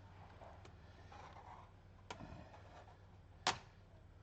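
Faint scraping and handling of laptop plastic, with a small click about two seconds in and a sharp snap about three and a half seconds in: the keyboard's retaining clips on a Lenovo B50-50 laptop being pried loose.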